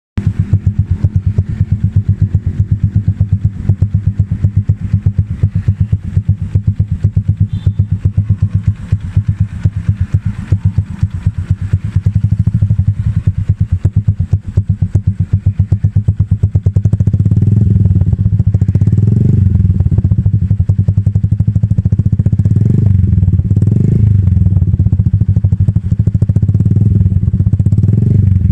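Honda Supra X 125's single-cylinder four-stroke engine running through a Lonerider CMMS 30 cm aftermarket racing exhaust: a steady, pulsing idle, then from about two-thirds of the way in a string of short throttle blips, about one every second or so.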